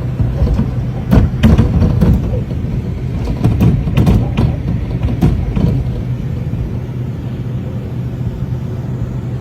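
Storm footage: a heavy low rumble of wind buffeting the microphone, with a steady hum underneath and many scattered sharp knocks and hits through the first six seconds or so, after which only the rumble remains.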